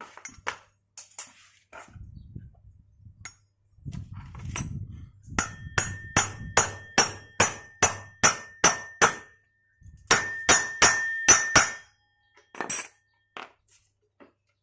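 Hammer blows on a metal part, driving it into place: a steady run of about a dozen ringing strikes, roughly two to three a second, then after a short pause a quicker run of about six more, and a couple of single knocks near the end.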